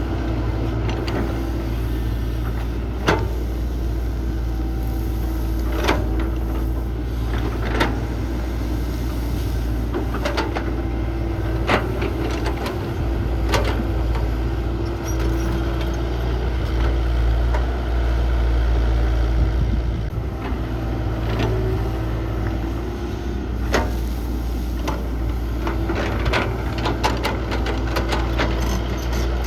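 Heavy diesel construction machine's engine running steadily under load, with sharp metallic knocks and clanks every few seconds.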